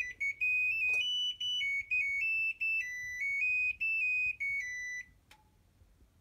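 Hitachi BeatWash washing machine's electronic buzzer playing its melody of high beeping notes that step up and down, the tune a Japanese washer plays when its cycle has finished. The tune stops about five seconds in, and a single click follows.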